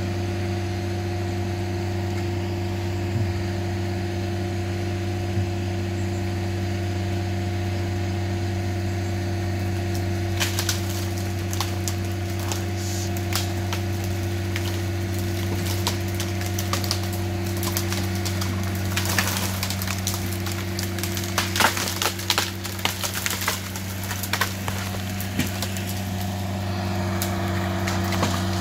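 Vermeer S925TX compact tracked loader's engine running at a steady speed while its winch pulls over a storm-damaged leaning tree. From about a third of the way in, branches crack and splinter, most heavily about two-thirds through.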